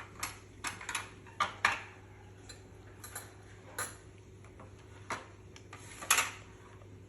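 Irregular light clicks and taps, about a dozen, the loudest near the middle of the first two seconds and near the end.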